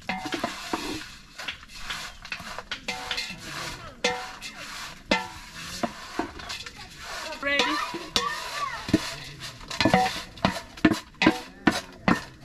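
A long metal spoon stirring and scraping dried dagaa frying in a metal cooking pot, with repeated clinks and knocks against the pot and a light sizzle. The knocks come louder and closer together in the last few seconds.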